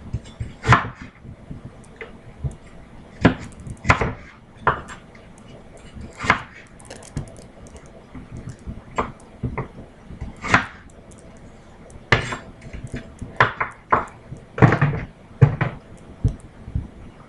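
A chef's knife cutting Granny Smith apples on a wooden cutting board, the blade knocking against the board in irregular strokes as the apples are halved and cored.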